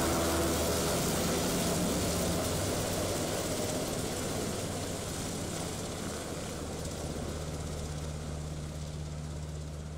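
UH-60 Black Hawk helicopter flying away overhead: a steady low rotor drone under a broad rushing noise, growing slowly fainter, with the higher part of the noise dying away first.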